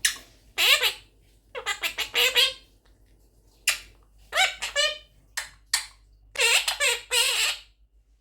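Quaker parrot (monk parakeet) giving a run of harsh squawks and chattering calls, about eight short calls in bunches with brief pauses between.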